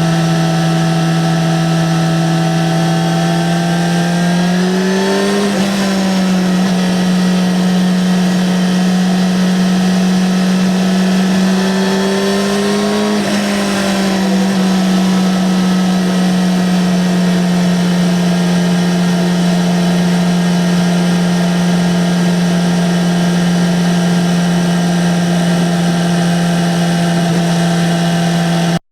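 Yamaha XJ6-N 600 cc inline-four engine with stock exhaust, under way at a steady high engine speed. The pitch rises slightly about five seconds in and drops back around thirteen seconds, then holds steady again.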